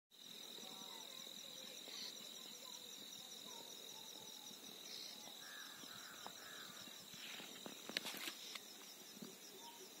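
A chorus of insects trilling steadily: one high continuous tone and a fast, even pulsing chirr above it, with faint bird chirps here and there. A few sharp clicks come about eight seconds in.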